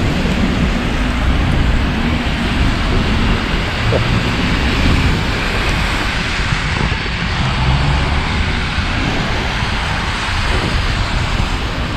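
Steady hiss of heavy rain on a city street, with a low rumble of traffic underneath.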